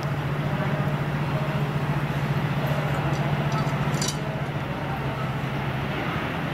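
ZSSK Cargo class 131 twin-section electric locomotive passing slowly, with a steady low hum from its traction equipment and the rumble of wheels on rails. A few brief high metallic clinks come between about three and four seconds in, and the hum eases slightly just after.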